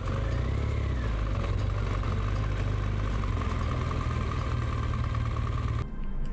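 Motorcycle engine running on the move, with road and wind noise; it starts abruptly and cuts off suddenly near the end.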